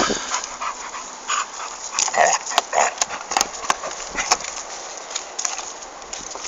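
A dog vocalising in noises that slide up and down in pitch, with a run of sharp clicks in the middle.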